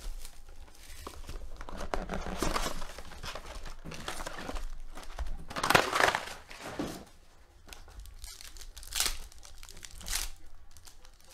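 Panini Phoenix football card box being opened and its foil packs handled and torn open. The foil wrappers crinkle and rip in separate bursts, the loudest about six seconds in.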